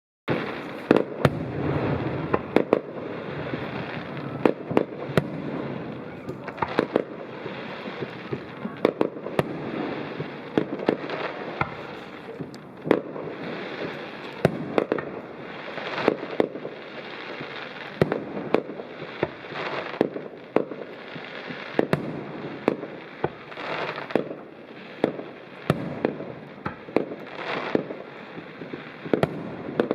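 Fireworks display: a rapid, irregular string of sharp bangs, often several a second, over continuous crackling between them.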